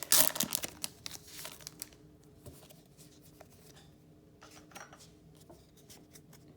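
Foil Pokémon booster-pack wrapper crinkling and rustling loudly for about two seconds, then quieter handling of the cards with scattered faint ticks.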